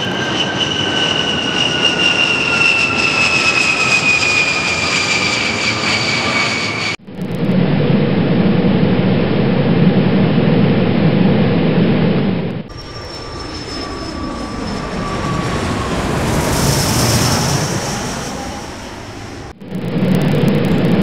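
Jet airliner engine sounds cut together: a turbofan whine sliding slowly down in pitch, then after an abrupt cut a steady low cabin drone. About thirteen seconds in, another falling jet whine swells into a rush of engine noise, and near the end the cabin drone returns.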